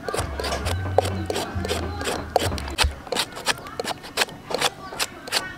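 Hand peeler scraping a raw potato in quick, repeated rasping strokes, about three a second.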